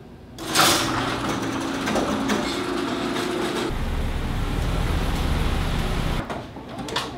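A garage door opener raises a sectional garage door, starting with a clank and then running with a steady hum and rattle. About three and a half seconds in, a low engine rumble takes over as a Ford Explorer SUV backs into the garage. The rumble drops off suddenly about six seconds in, and a click follows near the end.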